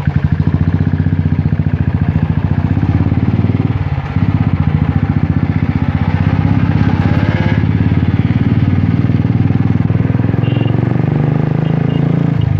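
Motorcycle engine running as the bike rides along, a steady rapid pulsing beat, with a short drop in level about four seconds in.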